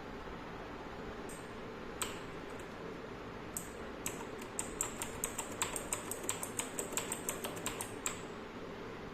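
Four-key mechanical keyboard switch keychain with blue clicky switches being pressed: a single click about two seconds in, then a fast run of crisp clicks, several a second, for about four seconds.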